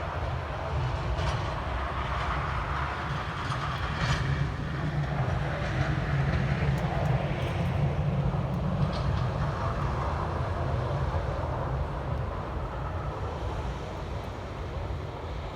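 Snowplow truck passing in the street, its engine a low rumble that builds, holds for several seconds and then eases off.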